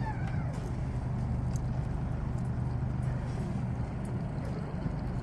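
Boat motor running steadily: a low, even hum.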